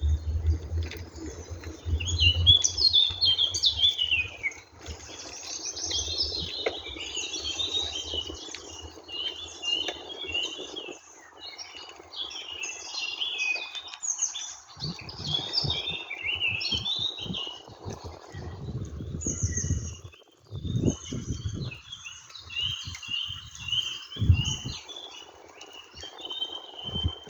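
A chorus of many birds chirping and singing at once, call over call, with no pause. Under it runs a low rumble, steady at first and then coming in short bursts in the second half.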